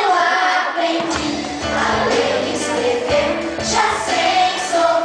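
Music: several voices singing together over instrumental accompaniment.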